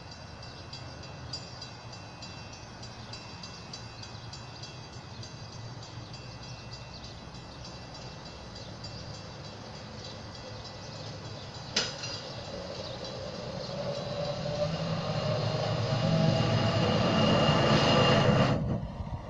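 Ford Super Duty hi-rail pickup truck rolling along the rails on its tyres and steel guide wheels. Its rolling noise grows steadily louder as it approaches, is loudest as it passes close by, then cuts off suddenly near the end. A single sharp click comes a little past halfway.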